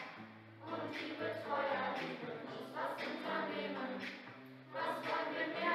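Background music: a song with voices singing together over a held instrumental backing.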